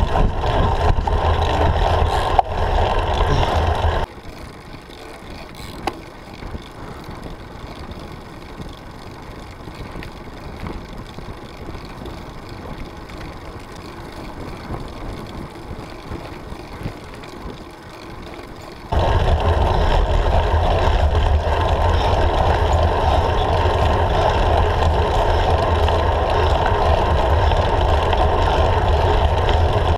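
Steady rushing wind and road noise picked up by a handlebar-mounted camera on a road bicycle climbing. It drops abruptly to a much quieter hiss about four seconds in and jumps back up just before the last third.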